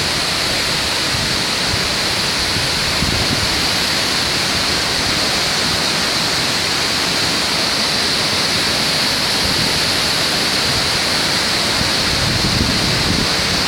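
Waterfall: a steady, loud rush of falling water, with no break or change.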